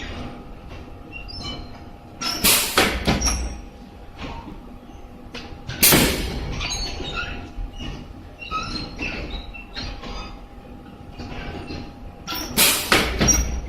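High-frequency welding and embossing machine for shoe uppers running: a steady hum with scattered clicks, broken three times by loud, noisy bursts lasting under a second each, about two and a half, six and twelve and a half seconds in.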